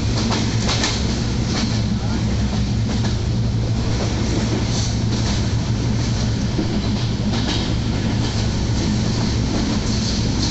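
Silkcity Express passenger train running along the track, heard from inside a carriage: a steady low rumble with irregular clacks of the wheels over the rails.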